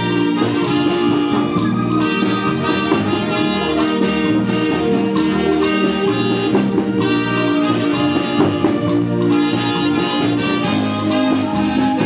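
Instrumental music with a steady beat and held notes playing through the hall.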